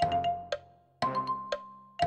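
Quiz countdown-timer sound effect: a short mallet-percussion figure of quick strikes repeating once a second, its held note alternating between a higher and a lower pitch.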